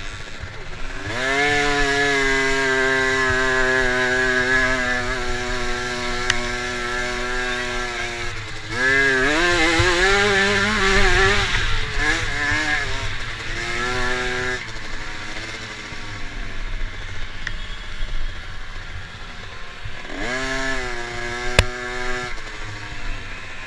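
Dirt bike engine, heard close from a camera on its handlebars, revving hard and holding high revs along the straights, then easing off and climbing back up several times as the rider accelerates out of the corners. A single sharp click near the end.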